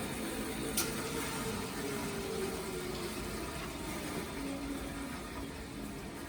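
Band saw running steadily with no cutting: an even rushing noise with a faint hum, and a light click about a second in.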